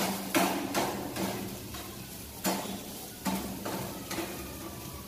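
Spoon stirring chopped onions in a frying pan of hot oil: irregular scraping, clinking strokes against the pan, over a faint frying sizzle. The strokes come three in quick succession near the start, then again about two and a half and three and a half seconds in.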